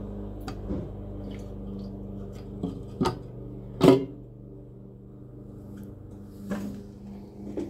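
A few short knocks and clinks of metal engine parts being handled as the fuel pickup tube is drawn out of a small engine's fuel tank, the loudest about four seconds in, over a steady low hum.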